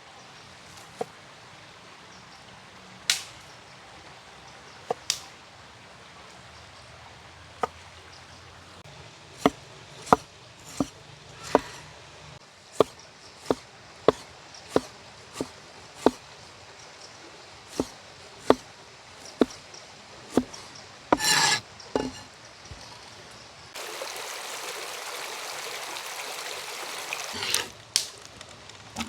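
Knife chopping on a wooden cutting board: a run of sharp knocks, one or two a second, with a quick flurry of them about two thirds of the way in. Near the end a steady hiss runs for about four seconds.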